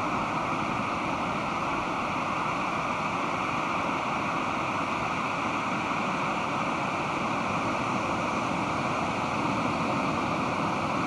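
Pacific Ocean surf washing on the beach in a steady, continuous roar without distinct individual wave surges.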